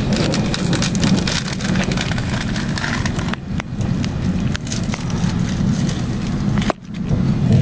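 Running noise of an ICE 1 high-speed train heard from inside a passenger car: a steady low rumble of wheels on track, with a dense crackle of small clicks over it. The level dips sharply for a moment near the end.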